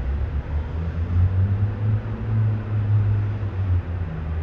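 Low engine rumble of heavy machinery, with a steady drone that grows stronger about a second in and eases just before the end.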